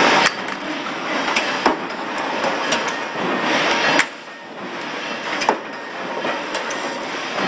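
Forging press at work: a steady mechanical din with sharp metallic clanks at irregular intervals, the loudest about four seconds in.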